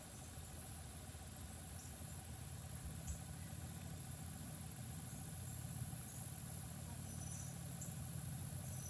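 Boat motor running steadily: a low hum, a little louder toward the end, with a constant faint high hiss above it.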